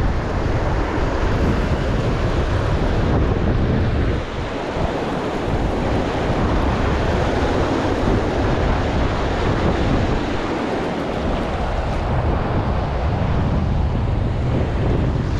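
Ocean surf washing steadily, with wind buffeting the microphone in a low rumble.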